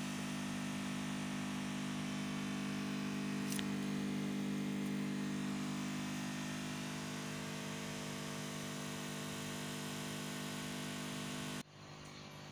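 Steady low mechanical hum made of several tones, dropping suddenly to a fainter hum near the end.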